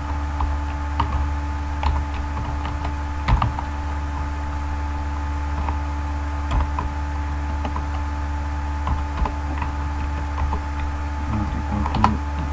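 Computer keyboard keys clicking in scattered, irregular keystrokes as code is typed, over a steady electrical hum.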